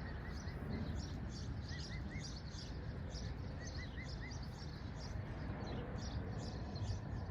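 Birds chirping over and over in quick short notes, with a few little runs of three or four higher arched calls, over a steady low rumble of outdoor background noise.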